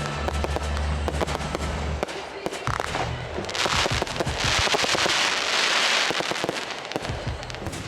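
Aerial fireworks going off in a rapid string of bangs and cracks; a dense crackling hiss swells up in the middle and fades again.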